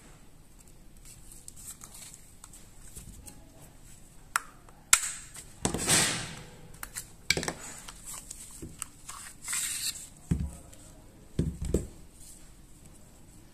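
Jericho 941 FB pistol being field-stripped by hand: a few sharp metal clicks, a sliding rasp about six seconds in and again near ten seconds as the slide is worked off the frame, and a few soft thuds near the end.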